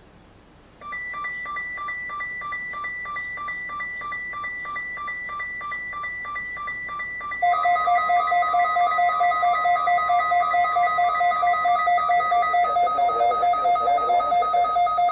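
Electronic alert alarms from weather radio receivers, beeping in a rapid warble and signalling an incoming weather radio test. About a second in, one alarm starts. About seven seconds in, a second, louder alarm at a lower pitch joins it.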